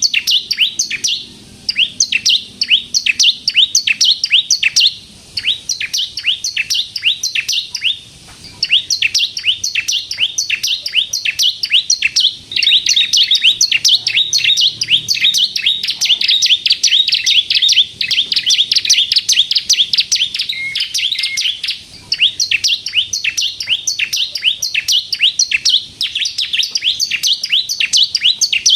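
Bar-winged prinia (ciblek kristal) singing in fast, high, chattering phrases: a rapid-fire string of sharp down-slurred notes, several a second, each run lasting a few seconds with brief breaks between.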